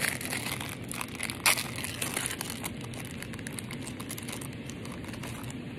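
Crinkling of a clear plastic packet of stickers being handled and opened, with a sharp crackle about one and a half seconds in, then only faint rustling.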